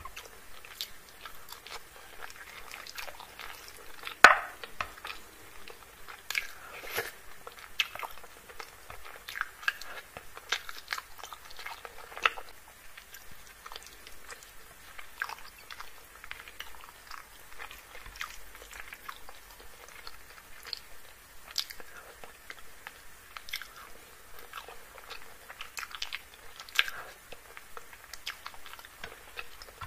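Close-miked eating by hand of chicken curry and rice: irregular wet chewing and mouth smacks, with the squelch of fingers working the curried food. A sharp click about four seconds in is the loudest sound.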